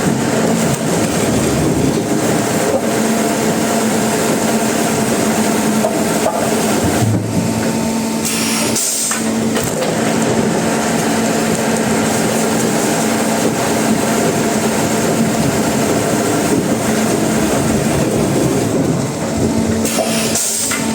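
Sawmill saw running and cutting timber: a loud, continuous noisy cutting sound over a steady motor hum, with brief dips about nine seconds in and near the end.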